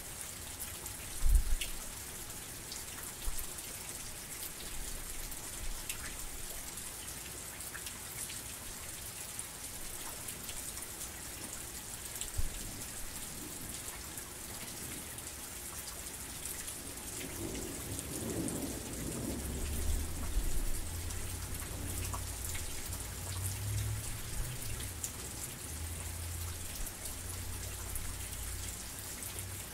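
Heavy rain falling steadily, with scattered individual drops ticking close by and a loud low thump about a second in. From about two-thirds of the way through, a low rumble of thunder swells and carries on under the rain.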